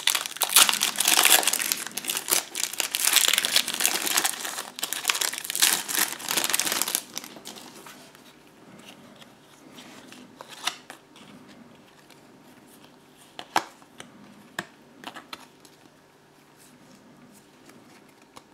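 Foil trading-card booster pack being torn open and crinkled, loud and continuous for about the first seven seconds. After that come quieter handling sounds of the cards, with a few sharp clicks.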